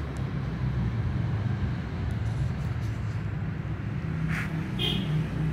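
Steady low rumble of motor vehicles, with a couple of brief high-pitched sounds around four to five seconds in.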